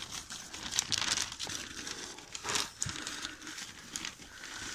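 Dry hay rustling and crinkling in a rabbit hutch, irregular, with a few louder crackles.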